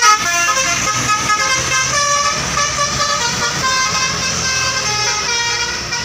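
Tour bus's basuri musical horn playing a tune of stepped notes, one after another, over the low running of the bus engine.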